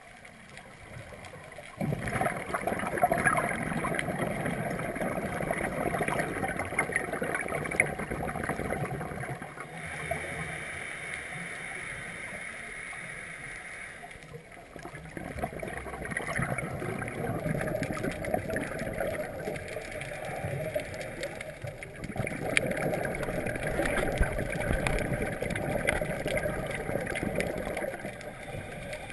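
Scuba diver breathing through a regulator underwater: long stretches of gurgling, rumbling exhaled bubbles alternating with a steadier hiss, heard muffled through the camera's underwater housing.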